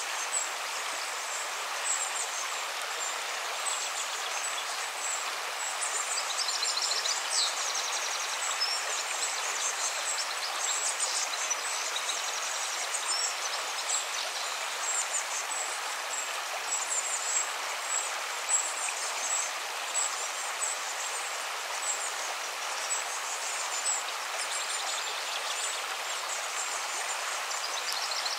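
Steady rushing of a flowing stream, with small birds chirping now and then: a nature-ambience soundtrack.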